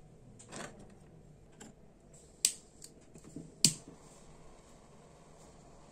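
A few short clicks and taps of small hand tools and lighter parts being handled and set down on a workbench, the two sharpest about two and a half and three and a half seconds in.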